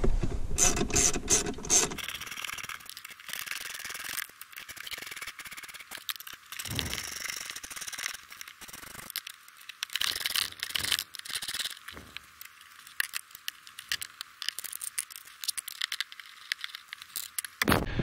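Hand ratchet with an extension clicking in runs, with short pauses, as small 8 mm screws are backed out.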